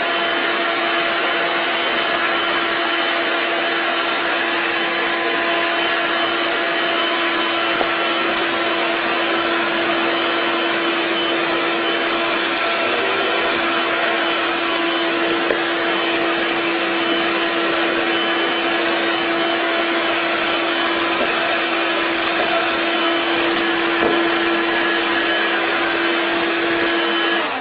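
Vacuum cleaner running steadily, its motor holding one unchanging pitch.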